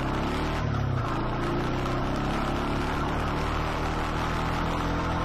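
Honda ATV engine running as the quad is ridden along a trail: a steady drone that rises and falls slightly in pitch about a second in, then holds even.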